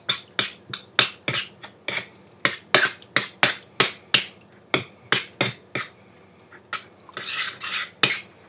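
Spoon knocking against a bowl while stirring cranberry sauce with triple sec, quick clinks about three a second, giving way to a softer scraping near the end.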